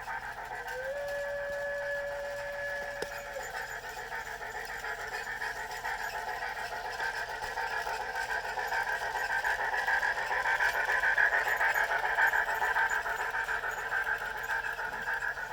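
Model steam locomotive's DCC sound decoder playing steam running sounds through its small onboard speaker: a steady hissing chuff that grows louder toward the middle. About a second in, a single held whistle tone slides up, sounds for about three seconds and cuts off.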